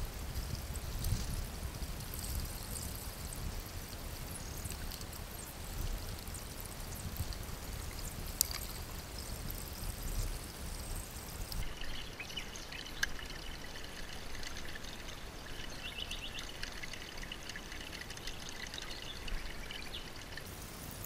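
Shallow creek water running and trickling over and around a sluice box set in the streambed, with one sharp click partway through. A little past halfway the water sound turns to a brighter, busier trickle.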